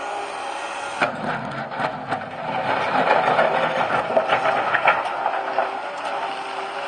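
Liebherr 944 excavator working, its engine running steadily. From about a second in, a stretch of clanking and rattling knocks rises over the engine, then eases off near the end.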